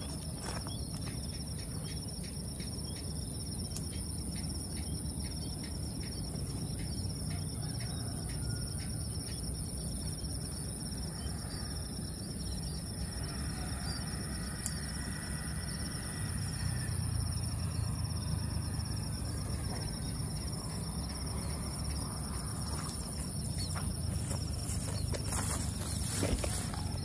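Insects trilling steadily in two high, continuous tones over a low rumble of outdoor background noise, with a brief rustle near the end.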